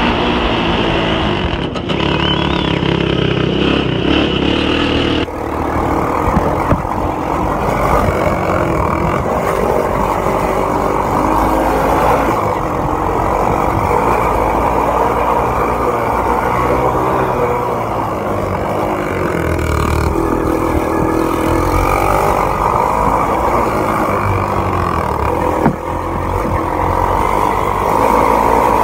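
Small engine of a racing minibike running hard close to the microphone, its pitch rising and falling again and again as the throttle opens and eases around the track.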